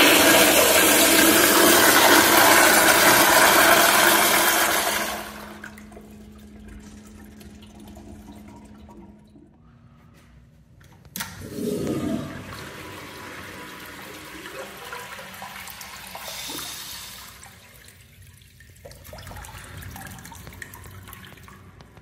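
Toilet flushing with a loud rush of water that drops away about five seconds in to a quieter trickle. After a cut about eleven seconds in, a top-spud urinal flushes with a shorter, softer rush of water that settles into a gentle flow.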